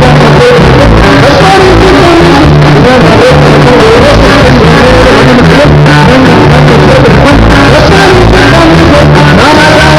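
Norteño music played loud, with singing over a steady bass line.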